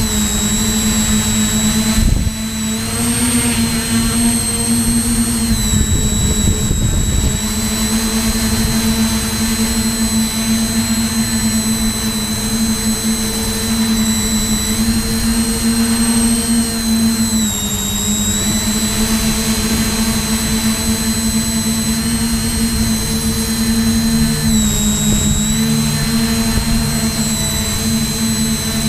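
Tricopter's motors and propellers whining steadily at close range, picked up by the camera riding on the aircraft. The pitch shifts a little as the throttle changes, stepping up about two seconds in and dipping briefly twice in the later half.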